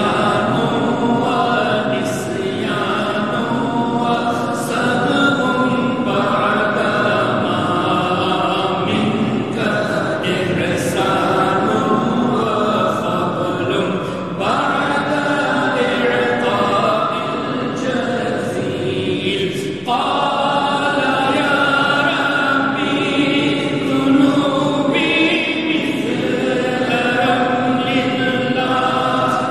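A group of voices chanting a devotional Arabic qasida together, unaccompanied, in long sustained phrases with short breaks between them.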